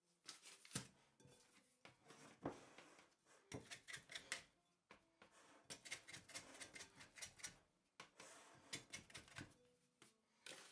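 Hand and plastic dough scraper working sticky whole-grain bread dough in a glass mixing bowl: faint, irregular scrapes, taps and clicks against the glass.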